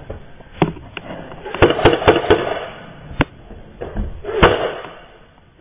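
Airsoft guns firing in a room: about eight sharp pops, several in quick succession around two seconds in and the loudest about four and a half seconds in.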